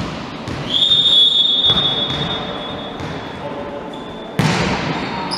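Volleyball referee's whistle blowing a long, steady, high note for service in a reverberant sports hall, sharpest at first and trailing off over about three seconds. A single knock of the ball on the floor comes at the start, and a sharp smack of the serve comes near the end.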